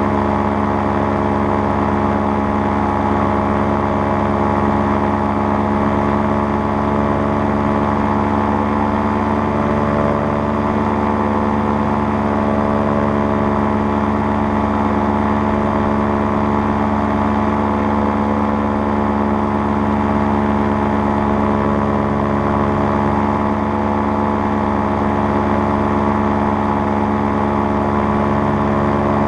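Paramotor trike engine and propeller running at a steady cruise throttle in flight: an even drone with no change in pitch.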